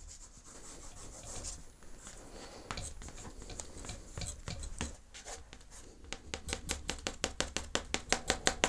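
Derwent Graphitone water-soluble graphite stick scraping and rubbing across smooth drawing paper, laying down hatched tone. Slow, irregular strokes turn about six seconds in into quick back-and-forth hatching, about five strokes a second, getting louder.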